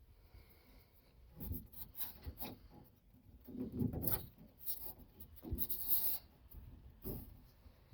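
Short, irregular bouts of rubbing and scraping, several in a row, as old truck wiring is handled and worked loose.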